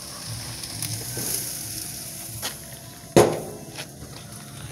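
Meat sizzling faintly on a Weber gas grill, with a single sharp knock about three seconds in and a couple of softer clicks around it.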